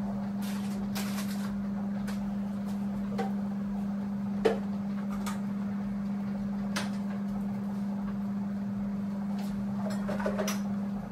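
Bathroom cleaning by hand: scattered light knocks and brief rubbing as items are handled and surfaces wiped with a gloved hand, over a steady low hum. One sharper knock about halfway through, and a few quick knocks near the end.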